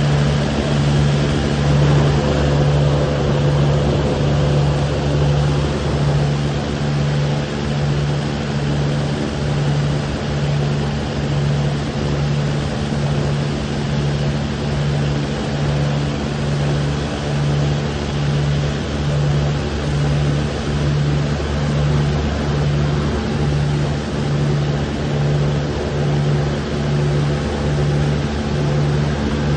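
Airboat's engine and air propeller running steadily under way, a loud constant drone with an even, slow pulsing in its low hum.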